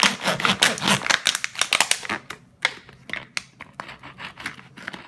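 Plastic soda bottle crackling and crinkling as it is cut and gripped by hand: a dense run of rapid crackles for about the first two seconds, then sparser single clicks.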